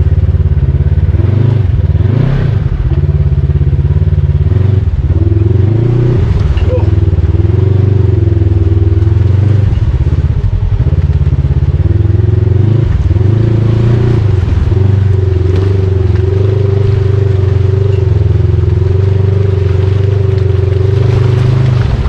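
Off-road vehicle engine running steadily while driving a trail, its note dipping and rising briefly a few times with the throttle.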